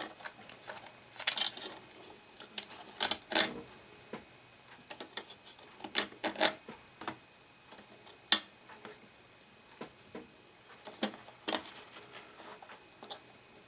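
Irregular small metallic clicks and taps of a small wrench and loose metal parts being handled while taking apart an analog pyrometer, with one sharper tap about eight seconds in.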